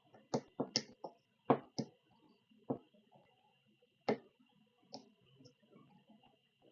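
Irregular sharp clicks and light taps of small hardware and tools being handled, about ten in all, with a faint steady high-pitched whine underneath.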